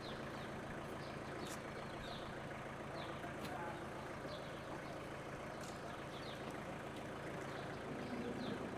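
Volkswagen Transporter van's engine idling steadily, with small birds chirping briefly now and then.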